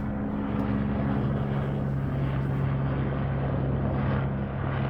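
Helicopter circling low overhead: a steady drone of rotor and engine, its pitch dropping slightly about a second in.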